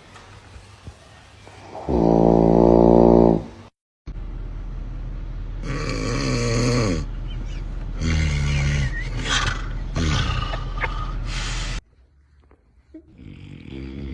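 Snoring in several short clips cut together: one loud, pitched snore about two seconds in, then after a brief cut to silence a run of rougher snores over a steady low hum, and a fainter stretch near the end.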